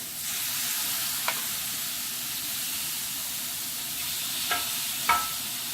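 Raw squid pieces, coated in garlic butter and cooking oil, sizzling on a hot grill: a steady hiss, with a few short clicks about a second in and near the end.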